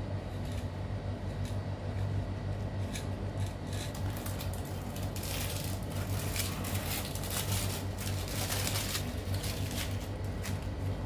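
Utility knife slicing through peel-and-stick wallpaper along the baseboard: a run of short scratchy cutting strokes, thickest in the middle. A steady low hum runs underneath.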